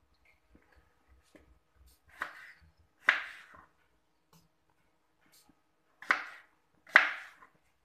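Kitchen knife chopping through peeled young green banana onto a plastic cutting board: four sharp chops, about two, three, six and seven seconds in.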